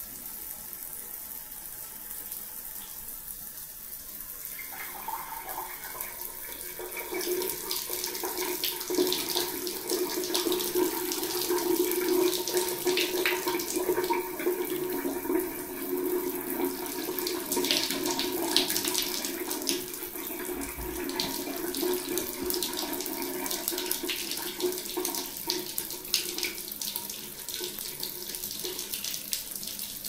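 Shower water running from a wall-mounted mixer valve with a faulty mixing cartridge, splashing onto a hand held in the spray. About five seconds in, a steady tone joins the rush of water, and the flow grows louder.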